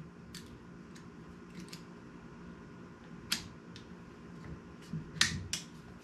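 Short sharp clicks of plastic and metal parts as a blade is fitted onto the head of a Ryobi cordless oscillating multitool. The clicks are scattered, with the loudest about three seconds in and a quick cluster near the end.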